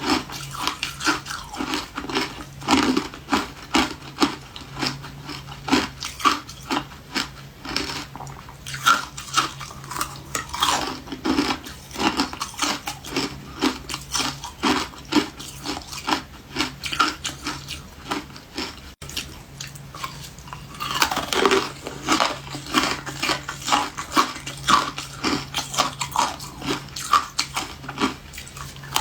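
Refrozen ice being bitten and chewed close to the microphone: rapid, repeated crunching, several crunches a second.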